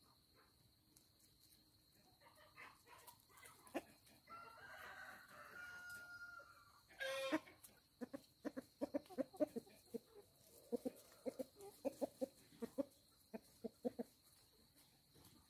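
Chickens clucking in quick runs of short notes through the second half, with a rooster crowing partway through.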